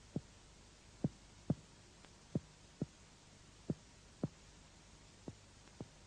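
Very light finger-on-finger percussion of the chest: about nine soft, dull taps, mostly in pairs about half a second apart. This is the lightest percussion, used to map the border of absolute cardiac dullness.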